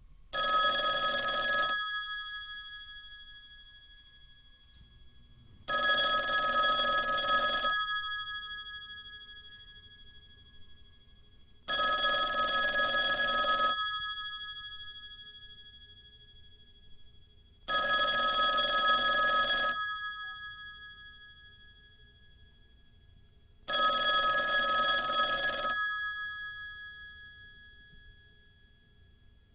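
Traditional rotary telephone's mechanical bell ringer ringing in five bursts of about two seconds each, one starting every six seconds, the bells fading slowly after each burst.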